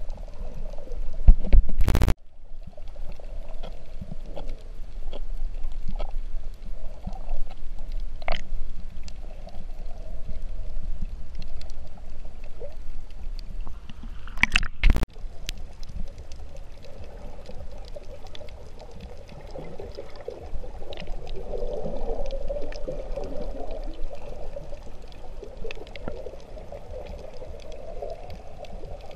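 Muffled underwater sound through a camera's waterproof housing: a steady low water rumble and gurgling with scattered faint clicks. Two short loud bursts, about two seconds in and again around fifteen seconds in, where the camera is at the waterline.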